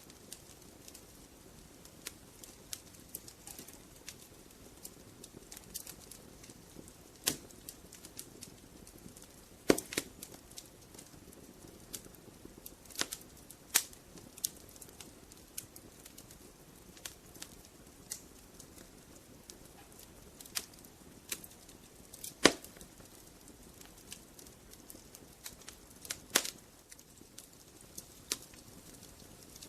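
Logs burning in a fireplace, crackling with irregular sharp pops and snaps over a soft steady hiss; a few pops stand out louder, about ten seconds in and again a little past twenty seconds.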